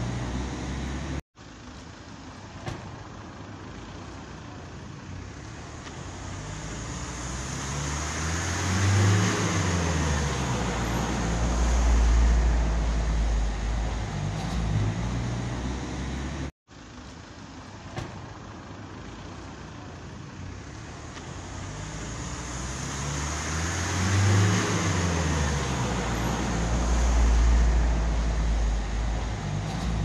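Road traffic with a motor vehicle passing by: its engine noise swells, peaks as it passes with the pitch falling, and fades away. This happens twice, each pass following a brief cutout of the sound.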